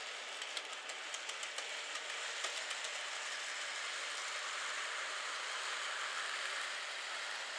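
Bandai B-Train Shorty E231 series model train, fitted with a motor unit, running along N-gauge track. It makes a steady running hiss from its small motor and wheels, with light clicks of the wheels over the track in the first few seconds, and grows a little louder past the middle as it comes close.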